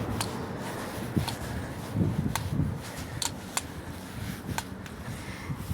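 Background ambience: a low steady rumble with scattered light clicks and ticks, and a faint voice about two seconds in.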